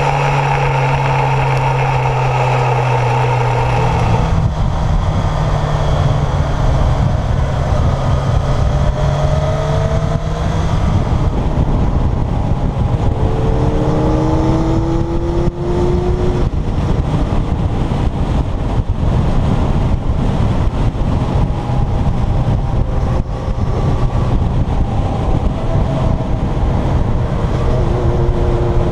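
Kawasaki Zephyr's air-cooled inline-four engine running on the road, with heavy wind rumble on a helmet-mounted microphone from a cut about four seconds in. The engine note rises a few times as the bike accelerates.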